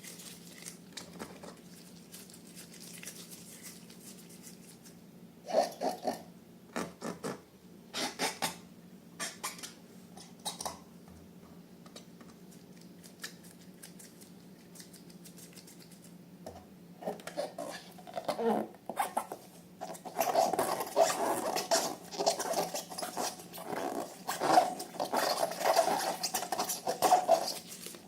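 Hands working slime and balloons: a few short squishing and handling noises, then from about two-thirds of the way in, continuous sticky crackling and rubbing with an even squeak through it.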